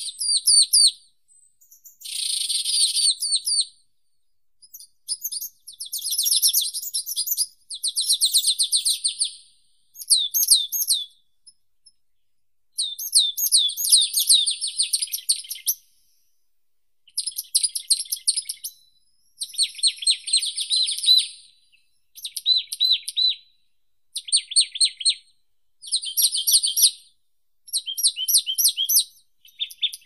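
Songbirds singing. About a dozen short, high trilled phrases of rapidly repeated notes follow one another, each lasting a second or two with brief pauses between.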